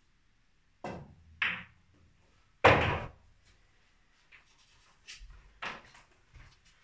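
A cue tip strikes the cue ball with a sharp click, the cue ball clacks into a red snooker ball about half a second later, and a louder, duller thud follows about a second after that as the red drops into a pocket of the pool table. Fainter knocks of balls and cue follow.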